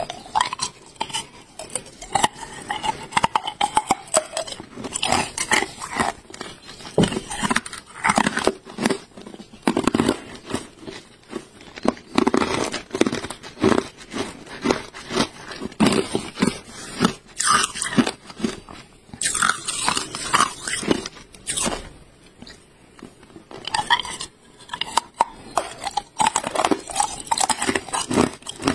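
Hard clear ice cubes being bitten and crunched between the teeth: a dense, irregular run of sharp cracks and crunches, with a short lull about two-thirds of the way through.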